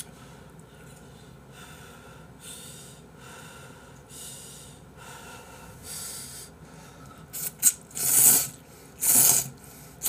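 A person slurping instant ramen noodles from chopsticks: quiet at first, then several loud slurps near the end.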